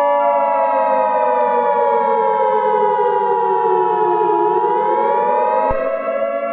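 Civil defense siren wailing as part of a mock emergency alert, its pitch sliding slowly down, then turning and climbing again about four and a half seconds in. A steady high tone sounds over it and cuts off with a click near the end.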